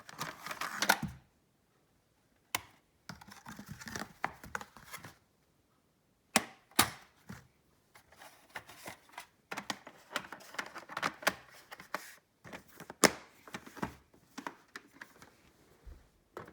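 Handling noise in a small room: scattered sharp clicks and taps with short bursts of rustling, broken by several pauses.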